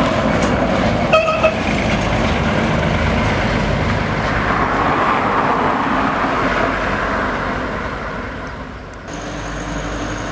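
Road noise of a heavy vehicle, likely a bus, passing at speed, with a short horn toot about a second in. The noise fades near the end, then changes suddenly to a steadier engine hum.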